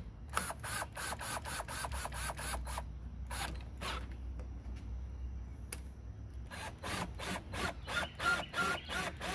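Socket ratchet clicking in quick runs of about five clicks a second as the headlight mounting bolts are run in, with a pause in the middle.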